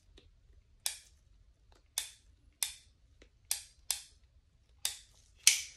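Ruger Single Six revolver's cylinder clicking as it is turned by hand with the loading gate open, chamber by chamber, to check that the gun is unloaded. About seven sharp clicks at uneven spacing, the one near the end the loudest.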